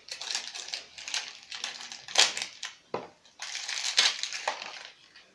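Plastic wrapping of a LOL Surprise toy crinkling and crackling as it is cut and torn open by hand, in irregular bursts with louder crackles about two and four seconds in.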